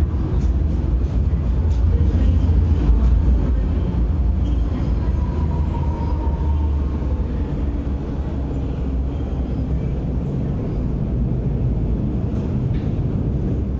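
MTR M-train (Metro Cammell electric multiple unit) running along the platform behind the screen doors: a steady, deep rumble of wheels on rail and traction gear, with a faint thin whine about halfway through.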